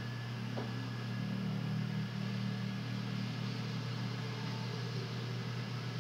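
Steady low hum with an even hiss behind it, unchanging throughout, with one faint click about half a second in.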